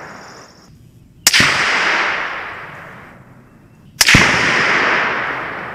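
Two rifle shots from a 20-inch 5.56 AR-15 about three seconds apart. Each is a sharp crack followed by a long echo that rolls away over two seconds or more.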